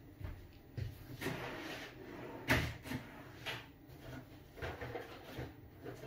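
Rummaging for a tool: scattered knocks and clatters of things being moved about and handled, the loudest about two and a half seconds in.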